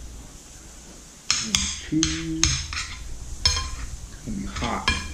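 Metal cutlery clinking against a dish: several sharp, ringing clinks at an uneven pace, starting a little over a second in.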